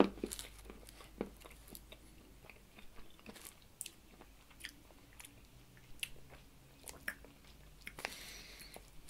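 Person chewing small hard candies in the mouth: faint, scattered sharp clicks and crunches, with a short hiss near the end.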